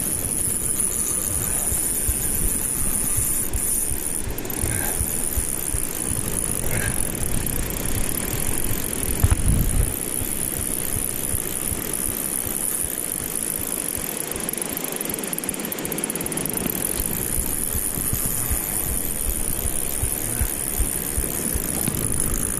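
Wind rumbling on the microphone, with a steady high-pitched buzz from the drag of a surf-casting reel as a hooked shark pulls line off; one low thump about nine seconds in.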